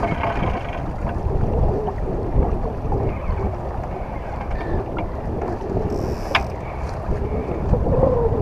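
Wind buffeting the microphone aboard a sailing yacht under way, a steady rushing noise, with a short high squeak about six seconds in.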